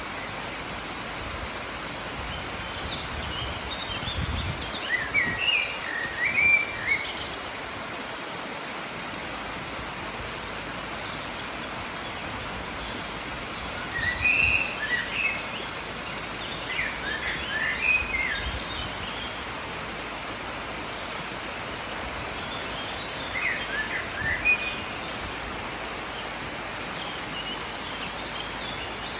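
Waterfall rushing steadily, with a songbird singing short chirping phrases over it several times.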